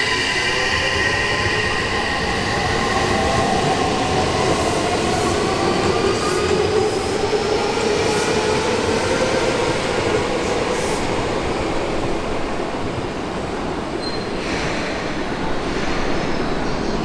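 Electric commuter train's VVVF inverter and traction motors whining as it accelerates, the tones climbing steadily in pitch for about eight seconds and then fading. The train's rolling noise carries on after that.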